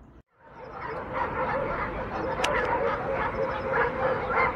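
A pack of stray dogs barking and yelping together, many barks overlapping. The sound fades in quickly after a brief dropout near the start. A sharp click comes about halfway through.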